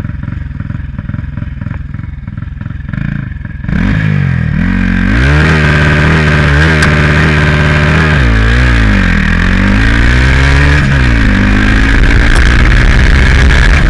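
Turbocharged Honda Titan 160 single-cylinder motorcycle engine running low, then accelerating hard from about four seconds in, its pitch climbing and dropping several times as it shifts up through the gears, ending in a steady loud rush of speed.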